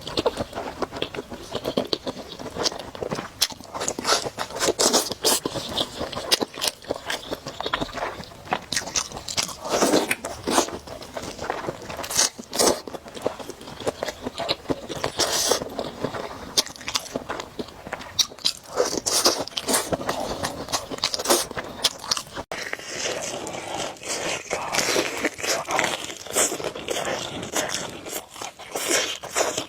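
Close-miked eating sounds: a person chewing and eating noodles, with many quick, wet mouth clicks throughout.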